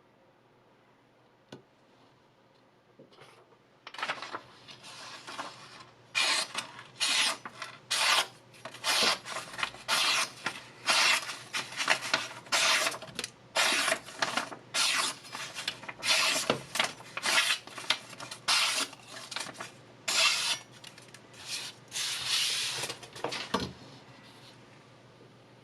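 Chef's knife blade drawn in repeated rasping strokes against a hard surface, about one a second.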